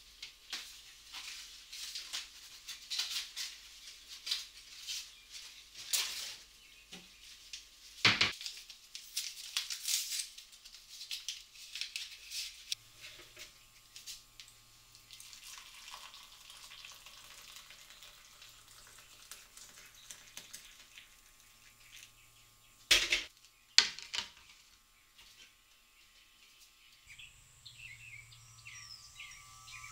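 Tea being made at a kitchen counter: clinks and knocks of a cup and utensils with rustling between, and sharp knocks about eight seconds in and twice near twenty-three seconds. Birds start chirping near the end.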